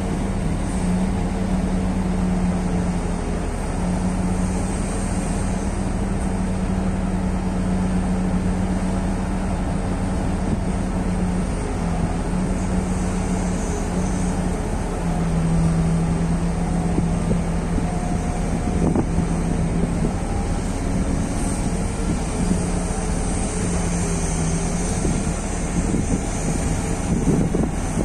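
Heavy-equipment diesel engine running with a steady drone. Its pitch dips slightly for a few seconds about halfway through, then rises again.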